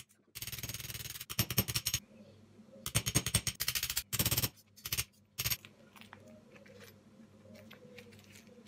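Hammer rapidly tapping a rusty steel hand-saw blade against a steel block to flatten out its warp: two quick runs of sharp metal-on-metal taps, each about a second and a half long, then two single taps. Only faint light clicks follow.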